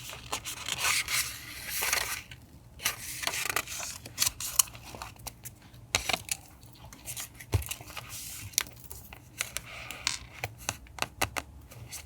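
Paper being handled for a collage journal page: rustling and rubbing swishes, with many short clicks and taps scattered among them.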